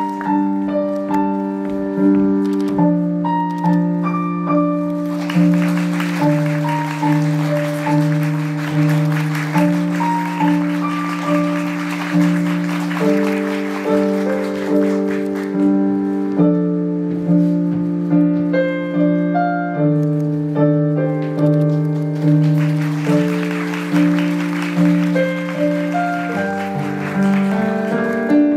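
Piano playing a repeating accompaniment figure with a steady pulse. Audience applause swells over it twice, for several seconds from about five seconds in and again later.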